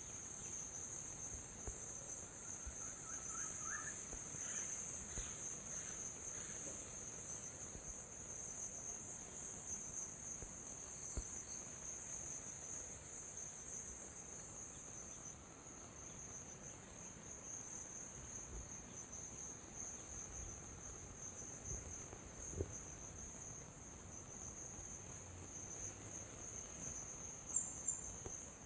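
Steady high-pitched chirring of insects, an unbroken outdoor chorus, with a few faint short chirps a few seconds in.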